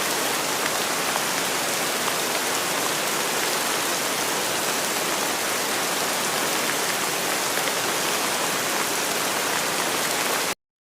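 Steady, heavy rain: a dense even hiss with scattered drop taps. It cuts off suddenly just before the end.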